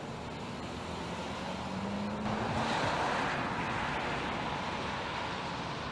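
A motor vehicle passing close by: its engine and tyre noise swell to a peak about three seconds in, then fade away.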